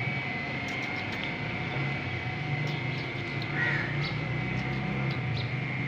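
A steady mechanical hum with a steady high whine above it, and a short call about halfway through.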